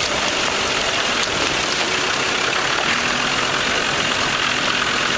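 A 4x4 vehicle's engine running steadily at low speed while crawling along a loose dirt track, under an even rushing noise.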